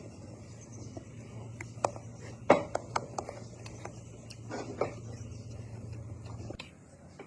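Eating sounds: scattered clicks and short knocks of utensils against dishes over a steady low hum that stops about six and a half seconds in.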